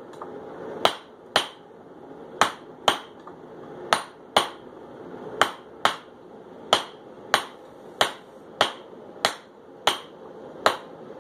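Hand hammer striking hot steel bar on a small ductile iron stake anvil, forging a set down to isolate a pyramid at the end of the bar. About fifteen sharp blows come mostly in pairs, each with a brief metallic ring.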